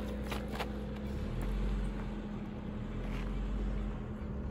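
Suzuki Jimny engine running steadily as the 4x4 crawls slowly over a dirt track, with a low rumble that swells about a second in. A few sharp clicks come in the first second.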